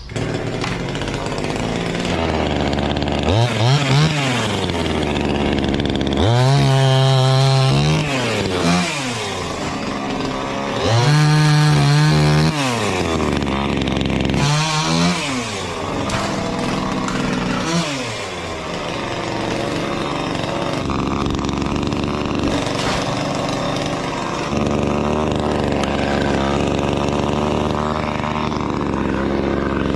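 Two-stroke chainsaw engine revved up about five times, each rev climbing to a high steady whine for a second or two and then falling back to idle. From about 19 seconds in it runs at a steady low idle.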